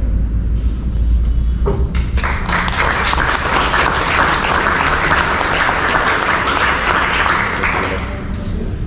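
Audience applauding: the clapping starts about two seconds in and dies away near the end.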